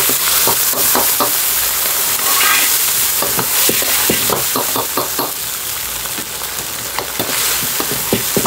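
Food sizzling and frying hard in a wok over a high flame, with a metal ladle stirring, scraping and knocking against the wok in quick runs of clanks, busiest in the middle.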